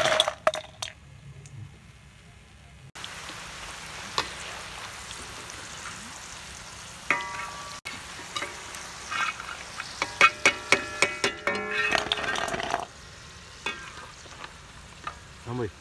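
Hot oil sizzling steadily while batter-fried snails are scooped out, with a steel slotted ladle knocking and ringing against a steel bowl, most busily in a run of knocks about ten to twelve seconds in.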